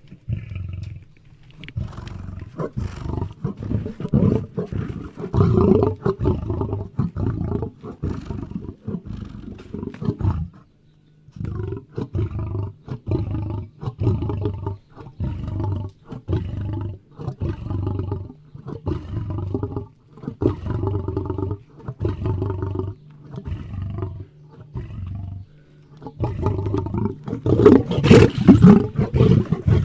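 Lion roaring: a long series of short, deep calls repeated about once or twice a second, broken by a brief pause about a third of the way in, with the loudest calls near the end.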